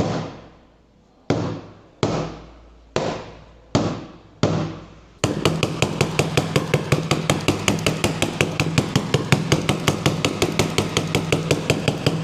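Film-covered glass being struck with a hammer in an impact test. First come single blows about a second apart, each ringing briefly. About five seconds in they give way to a rapid run of blows, several a second, that goes on to the end.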